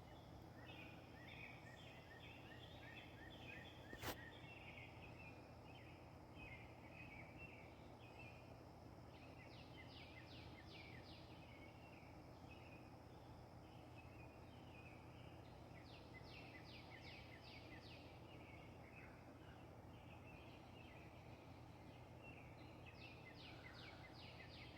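Faint songbirds singing in woodland: several birds chattering, one repeating a short series of five or six quick notes about every six or seven seconds, over a steady low background noise. A single sharp click about four seconds in.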